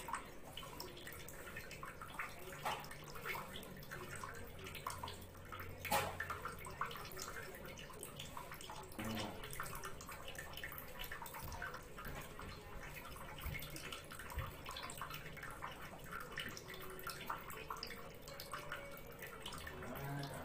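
Kitchen knife scraping the seeds and pulp out of a hollowed tomato: soft wet squelching with many small clicks, and one sharper click about six seconds in.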